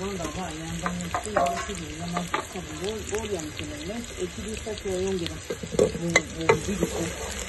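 Diced red onions sizzling in hot oil in an aluminium pot, with many sharp crackles and pops, the loudest a little past the middle. A low pitched sound wavers up and down alongside.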